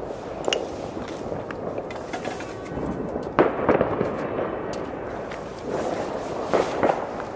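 Fireworks and firecrackers going off: a constant crackle with several sharp bangs, the loudest around the middle and another pair near the end.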